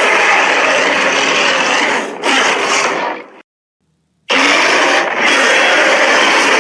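Edited monster roars made from a person's own roaring, processed to sound huge and harsh: one long roar fades out about three and a half seconds in, and after a second of silence another begins.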